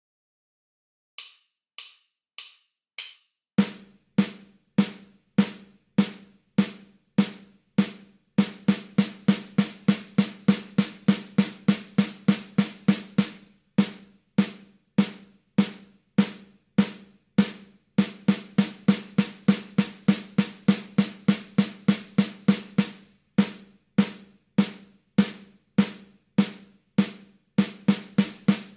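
Snare drum playing a timing exercise at 100 beats per minute after a four-click count-in. It plays eight even strokes, one per beat, then sixteen strokes at twice the speed, and this pattern repeats.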